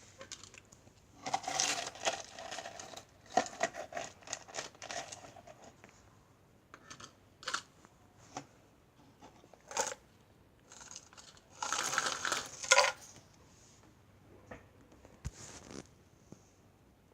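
Crisp crackling and crunching from meringue cookies, in three short bursts with single sharp clicks between them.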